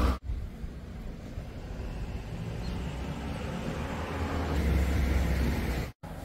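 Low, steady vehicle rumble that swells about five seconds in and breaks off abruptly near the end.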